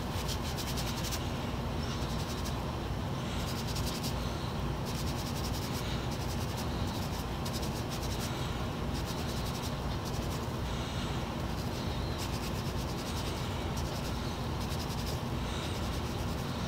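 Scotch-Brite scrub pad rubbed quickly back and forth over a small scratch awl, in repeated bursts of scrubbing strokes about a second long, over a steady low hum.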